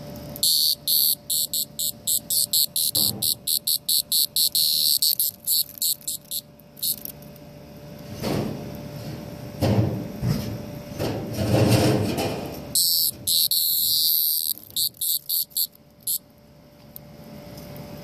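A cicada giving harsh, high-pitched buzzing squawks in rapid pulses while fingers handle it, the disturbed-insect distress call. There are two bouts, the first lasting about six seconds and the second, shorter one starting near the middle.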